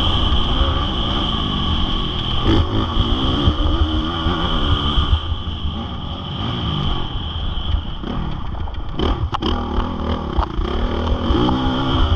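Honda CRF450R single-cylinder four-stroke motocross engine being ridden hard, its revs rising and falling again and again through throttle and gear changes. A few sharp clatters come about nine seconds in.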